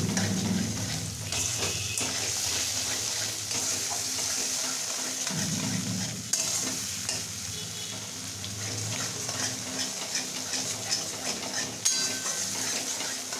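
Metal spatula stirring and scraping a thick spice paste that sizzles in a metal kadai, with a couple of sharp clinks of the spatula against the pan. The masala is being fried down until the oil separates, and is nearly done.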